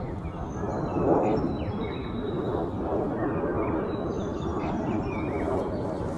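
Outdoor marsh ambience: a steady low background rumble with faint, short bird chirps scattered over it.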